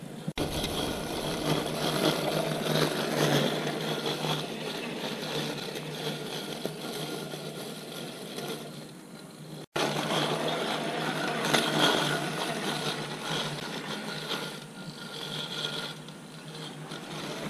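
Exgain E1800 robot lawn mower's brushless blade motor running steadily with a hum and a light whine as it cuts through long, thick buffalo grass. The sound drops out for an instant about halfway through.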